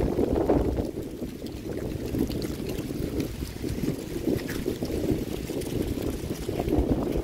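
Wind buffeting the microphone: an uneven, gusting low rumble that rises and falls.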